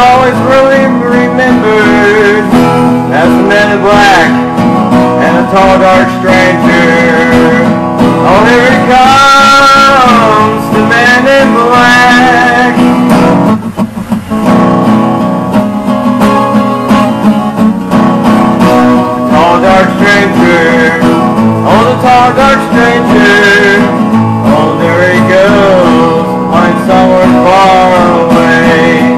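Guitar strummed with a man singing a country-style song, live; the playing dips briefly about halfway through.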